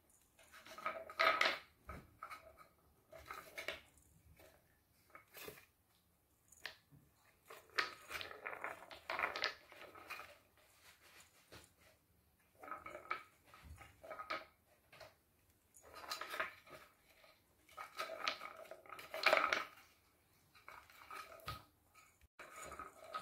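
Wooden balls rolling and rattling around the circular tiers of a wooden cat track toy as kittens bat them, in repeated bursts of a second or two.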